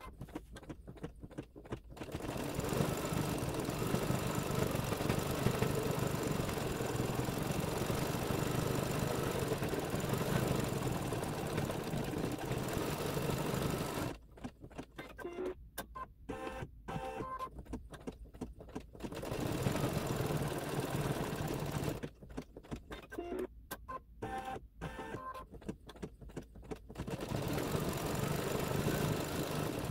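Embroidery machine stitching out a design: a steady running hum, broken into choppy stop-start stretches about halfway through and again a few seconds later before it runs steadily again.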